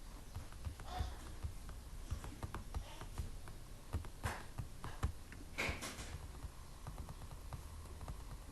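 Scattered light clicks and taps of a computer keyboard and mouse, irregular and a few louder than the rest, over a steady low hum.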